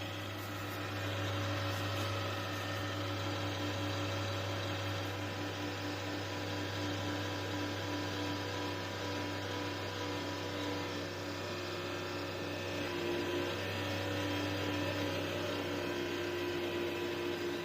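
Computer CPU cooling fan running loud: a steady whir with a low hum and a whine of several tones, one of which shifts up slightly about two-thirds of the way through. This excessive fan noise is the fault being shown.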